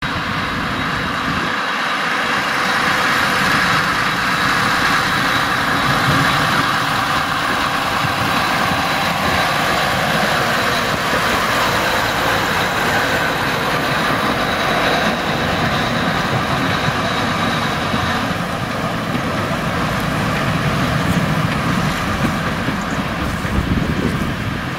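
Small narrow-gauge diesel locomotive's engine running steadily as it passes and moves off along the track.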